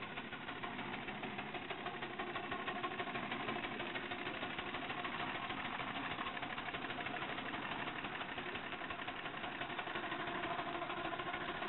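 Ride-on miniature steam traction engine running as it is driven along, giving a fast, even mechanical clatter. The clatter grows a little louder about two seconds in.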